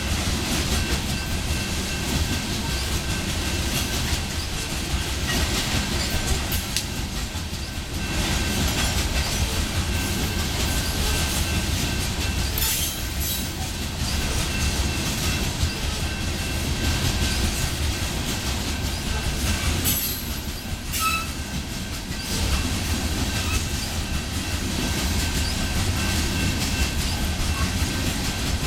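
Loaded coal cars of a freight train rolling past in a steady rumble, with the clickety-clack of wheels on the rails and a faint, steady high wheel squeal.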